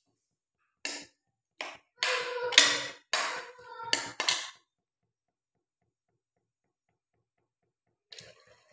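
Steel spoon scraping and clinking against a steel wok while stirring fish in thick gravy: a run of strokes with a slight metallic ring for about four seconds, then it stops.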